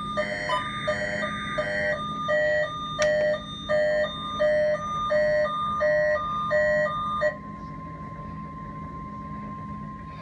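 Weather radio receiver sounding a test alert. An electronic alarm beeps in a rapid alternating two-tone pattern, about one and a half cycles a second, and stops about seven seconds in. A steady single tone near 1 kHz carries on after it: the warning alarm tone of a NOAA Weather Radio weekly test.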